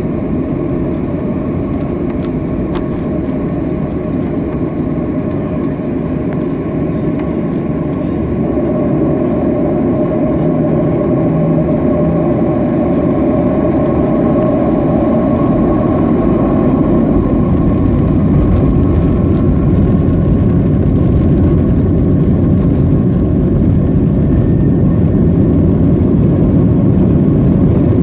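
Cabin noise of a Boeing 737-700 taxiing, heard from a window seat over the wing. The CFM56-7B jet engines give a steady hum over a low rumble, which grows somewhat louder from about eight seconds in.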